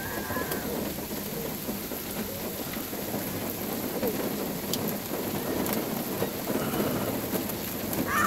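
Steady rain falling on a puddle and wet ground, with a short high squeal right at the end.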